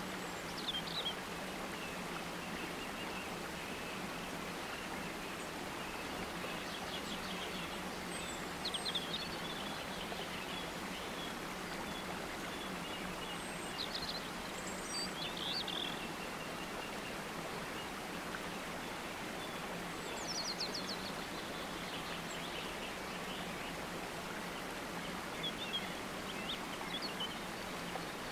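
Nature soundscape: a steady, even rush of running water, with birds chirping in short bursts every few seconds.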